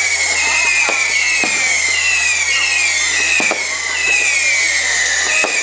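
Fireworks display: whistling fireworks going off in quick succession, each whistle falling in pitch, about two a second, with irregular sharp bangs among them.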